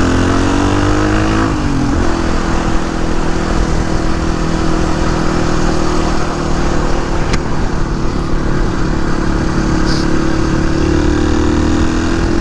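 Suzuki DR250S single-cylinder four-stroke motorcycle engine under way: the revs climb, drop at a gear change about two seconds in, then hold steady at a cruising speed, rising slightly near the end.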